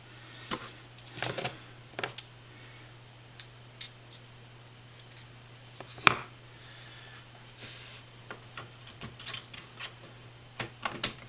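Small clicks and light taps of metal and plastic RC truck parts being handled and fitted together by hand, scattered through, with one sharper click about six seconds in.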